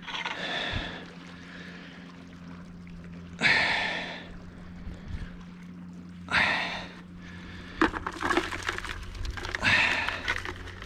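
Water splashing and pouring off in short bursts about three seconds apart, with a run of crackling clicks in the second half, as a crayfish lift net is handled just after being hauled out of the reservoir.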